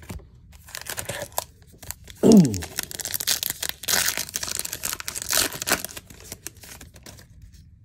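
Foil wrapper of a Topps baseball card pack being torn open and crinkled, a dense crackling rustle for several seconds. A brief sound falling sharply in pitch about two seconds in.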